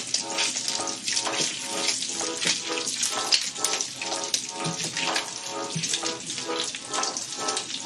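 Background music with a steady beat of repeated chords, over a continuous hiss.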